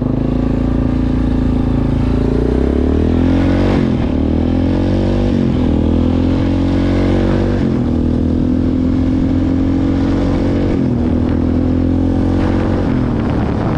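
ATV engine running under throttle, its pitch climbing and then dropping several times, around four, five, eight, eleven and thirteen seconds in.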